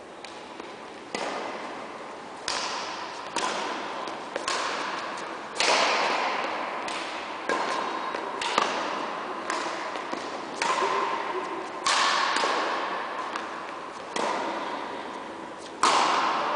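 Badminton rally: racket strings striking the shuttlecock about every one to two seconds, each a sharp smack followed by a long fading echo off the sports hall's walls.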